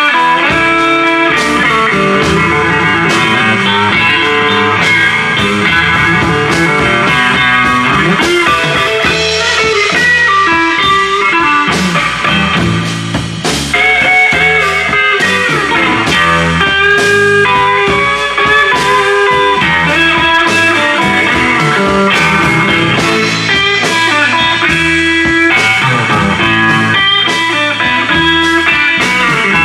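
Live blues trio playing an instrumental passage: guitar lead over double bass and drums, without singing.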